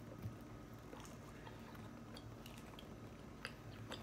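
Two people faintly biting and chewing slices of crisp-crusted pizza: scattered short crunching clicks over a low steady hum.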